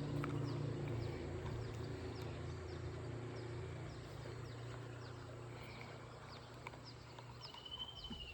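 A steady low engine hum that slowly fades, with short high chirps repeating about twice a second and a warbling bird-like call near the end.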